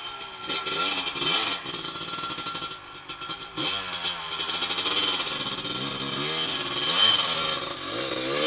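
Dirt bike engine revving in repeated surges, the throttle opened and eased again and again as the rider tries to power the bike out of deep mud.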